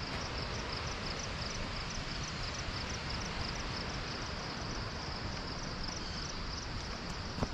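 Insect chirping high and steady, several pulses a second, over a constant rushing background noise, with one brief knock near the end.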